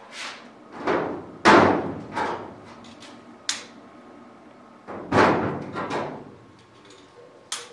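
Aluminium wing skin being handled and fitted against a metal wing: a series of knocks and thuds, some with a short metallic ring, loudest about one and a half and five seconds in.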